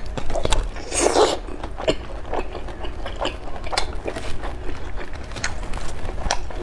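Close-up eating sounds of a person biting and chewing a large piece of sauced squid: wet mouth smacks and clicks throughout, with one longer rasping sound about a second in.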